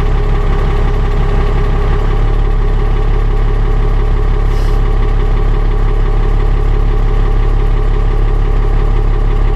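Dodge Ram's 12-valve Cummins 5.9-litre inline-six diesel idling steadily at a bit under 1000 rpm, in its first minutes after a cold start, heard from inside the cab.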